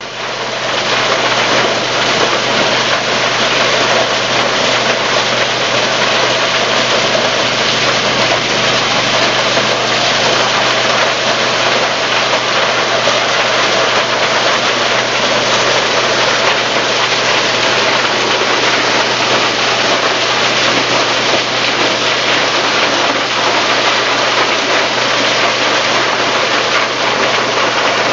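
Motorized corn thresher running steadily, its engine and threshing drum making an even, continuous din with a low hum underneath.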